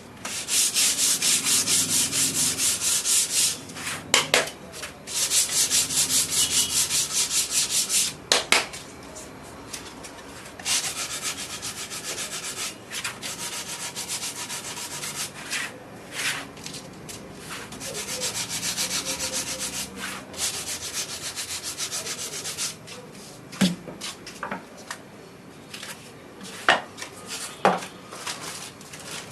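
Sandpaper rubbing on the base of a coconut grater in fast, even back-and-forth strokes during fine sanding. The sanding comes in several runs, with quieter pauses between them and a few sharp knocks.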